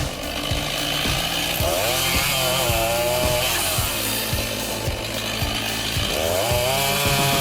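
Chainsaw cutting through a tree trunk, running steadily. Its pitch rises and falls twice as the engine revs and loads in the cut.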